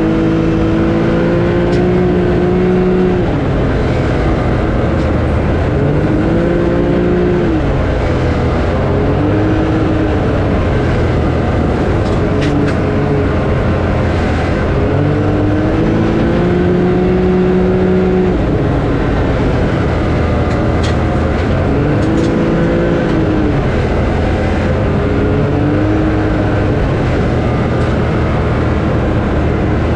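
A motor vehicle's engine running under a steady noise bed, its pitch holding steady for a few seconds at a time, then rising and easing off in short humps, over and over.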